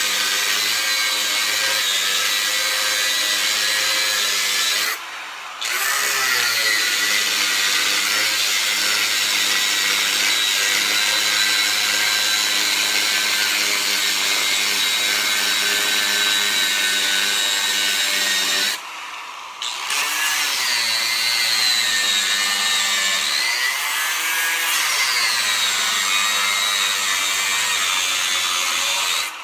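Angle grinder cutting into the metal outer shell of an antique York safe: a steady, loud, high-pitched whine over a grinding hiss. Twice, about five seconds in and again near the twenty-second mark, the grinder briefly lets up and the pitch wavers as it picks back up.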